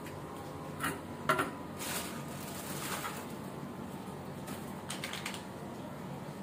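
Light clicks and knocks of PVC pipe and fittings being handled, a few scattered taps with the loudest about a second in and a short cluster near the end, over a steady low hum.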